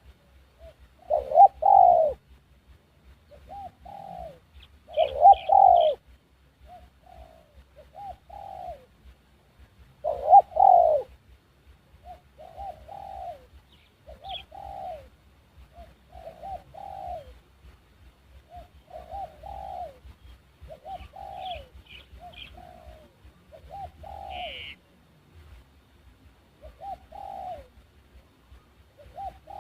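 Dove cooing: short coo notes repeat every second or two, with three much louder coo phrases in the first half. Brief high chirps from another small bird are also heard.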